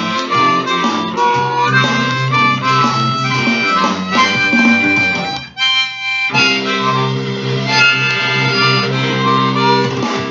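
Harmonica (blues harp) improvising blues, with held and bent notes, over a guitar backing track. The accompaniment drops out for a moment just past halfway, then resumes.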